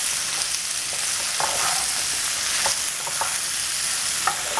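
Baby potatoes sizzling steadily in coconut oil in a skillet, stirred with a wooden spatula, with a few soft scrapes and knocks as it moves them around the pan.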